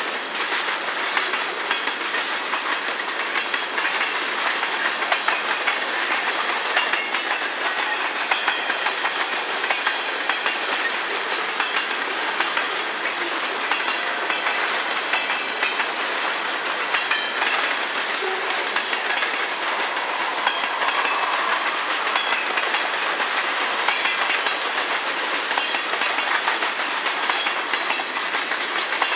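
Freight train cars rolling steadily past, their wheels clicking and clacking over the rail joints and the diamond crossing.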